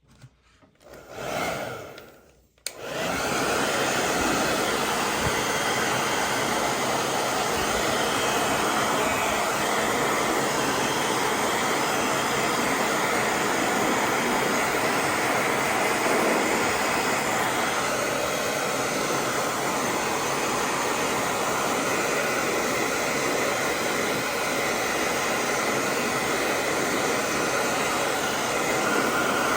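Hair dryer switched on about three seconds in, then blowing steadily.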